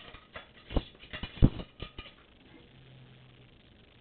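Cleaning rod knocking and clattering in a Remington 887 pump shotgun's barrel as a wool patch is pushed through it: a run of sharp knocks in the first two seconds, the loudest about a second and a half in, then quiet.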